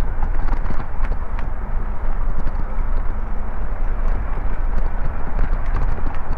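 Ride noise from a bicycle-mounted action camera: a steady low rumble of wind and road vibration, with scattered clicks and rattles.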